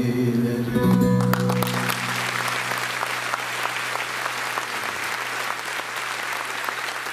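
The last notes of a bağlama (long-necked Turkish lute) ring out, and about a second and a half in the audience starts applauding, steady clapping that continues while a low note fades under it.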